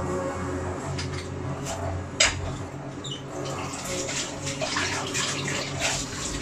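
Pot of chicken tinola broth bubbling on a gas burner: a run of small crackling pops over a steady low hum, with one sharp click about two seconds in.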